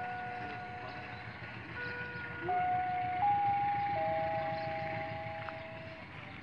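A simple electronic melody of long held notes stepping between a few pitches, like a chime jingle, over a steady background hiss.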